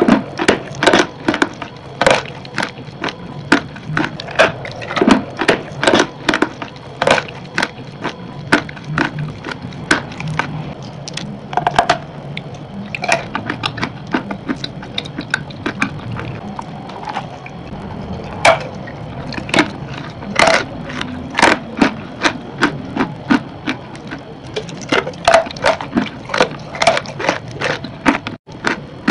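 Crunching and chewing of a crumbly white chalky block: sharp crunches come one or two a second, thinning out briefly a couple of times.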